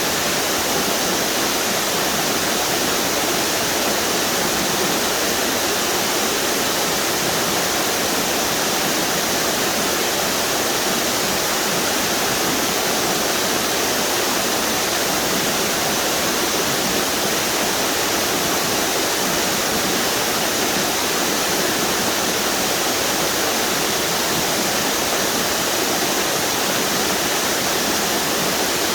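A series of river waterfalls rushing steadily, a dense, even roar of falling and churning water.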